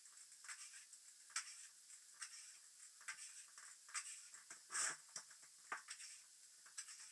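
Faint, irregular short hissing squirts and strokes as a hand spray bottle mists water onto fresh plaster and a plastering trowel is worked over the wet skim. The loudest, longest burst comes about five seconds in.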